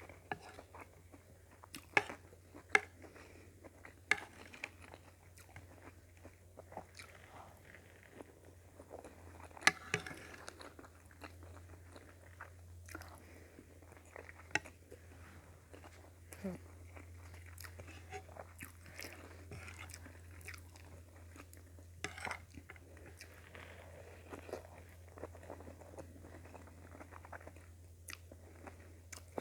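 A person chewing and biting into a meal of sautéed cabbage, potato and carrot with sardines and rice, with scattered sharp clicks through the chewing. A steady low hum runs underneath.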